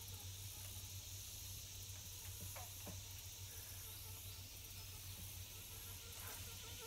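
Faint outdoor background: a steady high hiss over a low hum, with a few faint clicks between two and three seconds in.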